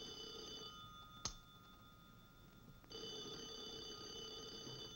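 Telephone ringing: one ring stops about a second in, a single sharp click follows, and a second ring lasting about two seconds comes near the end.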